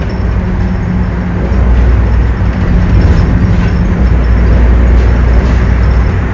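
City bus running, heard from inside: a steady low engine rumble and road noise, getting louder about a second and a half in.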